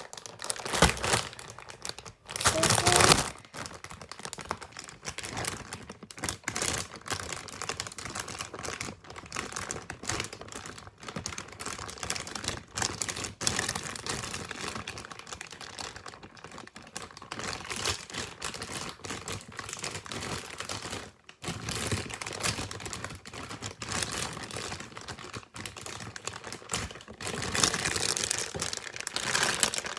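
Plastic squishy packaging bag crinkling and crackling as it is folded and pressed to seal it shut, with the loudest rustles about a second in and again around three seconds in.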